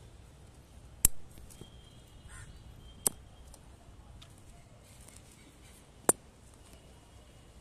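Three sharp clicks, about one, three and six seconds in, over a faint steady background.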